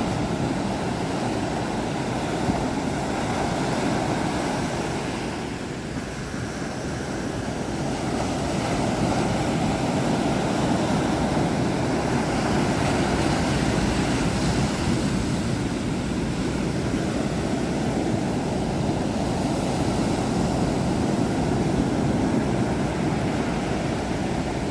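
A storm, heard as a steady dense rush of noise that eases briefly about six seconds in and then builds back up.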